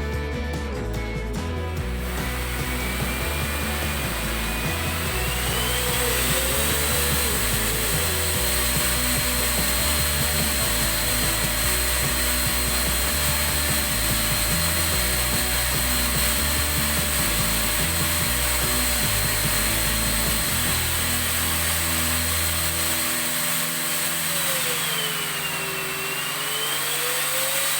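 Iris Ohyama corded canister stick vacuum cleaner motor switched on. Its whine climbs in pitch over a few seconds and then runs steadily, dipping and climbing back near the end. Background music plays under it for most of the stretch.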